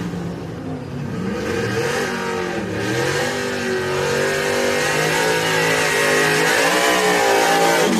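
Drag-race pickup truck engine revving near the starting line, its pitch rising and falling, growing louder from about three seconds in.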